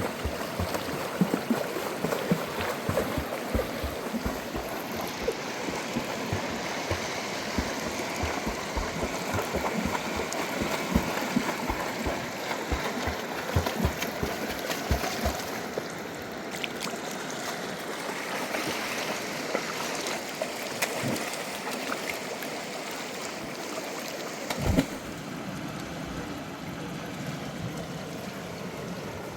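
River water flowing and gurgling, a steady rush. Many soft low thumps and knocks come through the first half, and one louder thump comes near the end.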